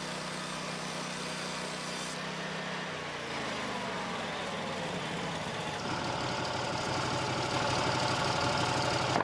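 Portable band sawmill's engine running steadily, then changing pitch about three seconds in and settling into a higher, louder steady whine from about six seconds, as the mill is brought up to cutting speed.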